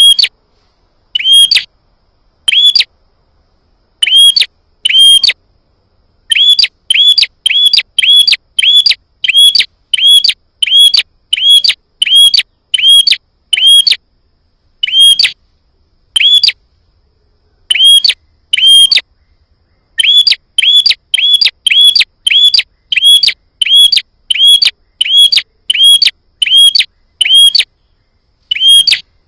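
Prinia (prenjak) calling: a long series of short, sharp chirps, all alike, in runs of about two a second broken by brief pauses. This is the provoking call used to lure a wild prenjak into answering.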